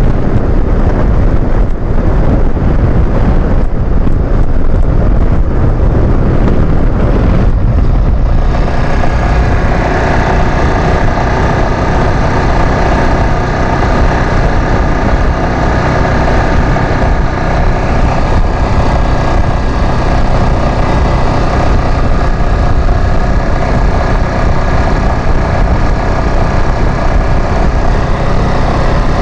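Yamaha Fazer 150's single-cylinder engine running at speed under heavy wind rush on the microphone. About seven seconds in the wind noise drops away and the engine's steady, even drone comes through clearly.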